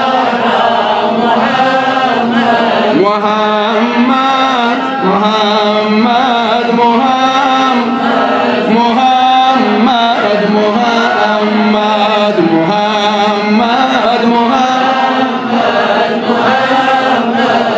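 Male voice chanting a Kashmiri naat, a devotional song in praise of the Prophet, in a melodic line over a steady low drone held underneath.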